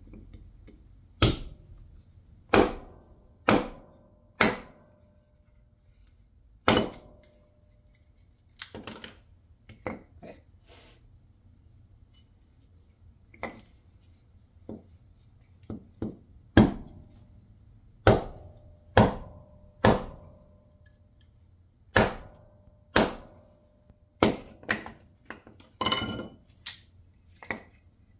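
West German camp hatchet splitting short blocks of wood into kindling: about twenty sharp chops at uneven intervals, some followed by a brief ringing tone.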